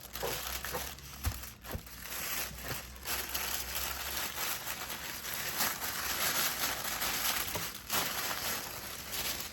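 Packaging wrap being handled and pulled off a new inline skate frame by hand: continuous rustling with scattered sharp clicks.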